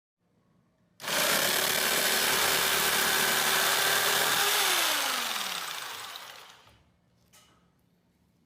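YOJIMBO 1100W electric jigsaw switched on and running at a steady speed for about three and a half seconds. The trigger is then released and the motor winds down with a falling whine. A faint click follows near the end.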